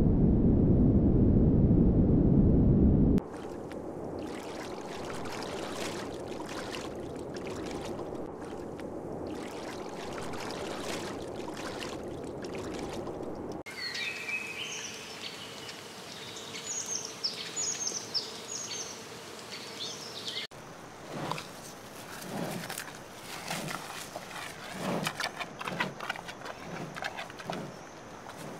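Wild ambience in stages: a low rushing noise at first, then a softer steady trickle-like hiss, then birds calling with short rising chirps in a forest. In the last few seconds a mountain gorilla chews leaves with a regular munching rhythm, a little more than once a second.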